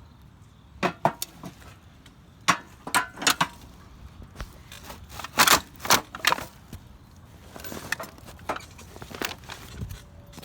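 Scrap and junk being shifted about in a dumpster: a run of irregular knocks and clatters, loudest about halfway through and lighter toward the end.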